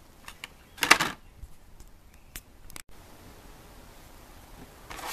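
Carded die-cast cars in plastic blister packs being handled and shuffled in a plastic tub: a short, loud rustle of card and plastic about a second in, a few light clicks, and more rustling near the end.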